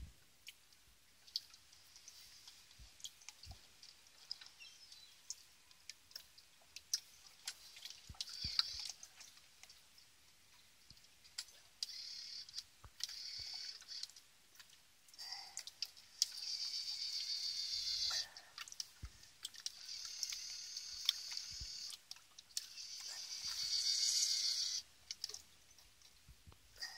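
Small electric motor of an RC mini submarine whining in several separate spells of a few seconds each, the loudest near the end, with scattered light clicks in between.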